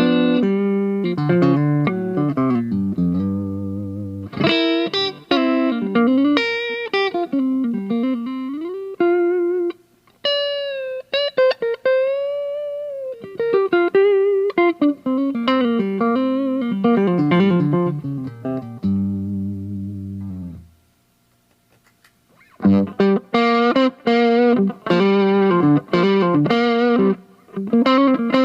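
Aria Pro II PE electric guitar being played: single-note lines with bent, wavering notes and sustained phrases, a brief stop about three-quarters through, then fast picked chords and riffs.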